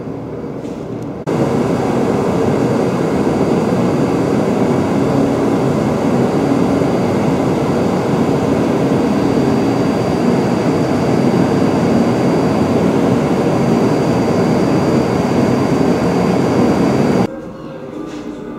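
Loud, steady mechanical rumble and rush, like a large fan or blower running, with a faint high whine over it. It starts abruptly about a second in and cuts off abruptly near the end.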